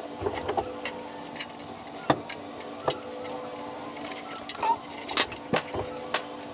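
Irregular sharp metallic clicks and clinks, like small metal parts and tools being handled, over a steady machine hum.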